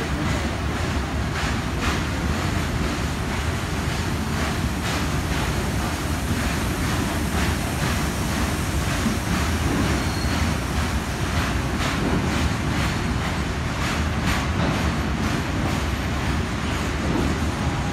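Goods train wagons rolling past on steel rails: a steady running noise with repeated clacks as the wheels cross rail joints.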